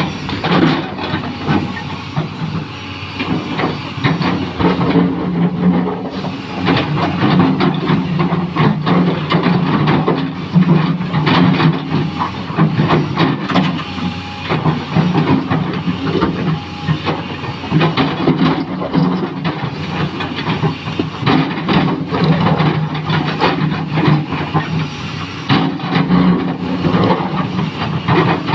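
XCMG 380 excavator's diesel engine running steadily under load with hydraulic hiss, and many short knocks and rattles throughout as it digs and loads material into tipper trucks.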